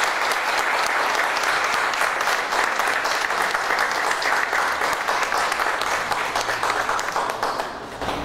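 Audience applauding, dense steady clapping that dies away near the end.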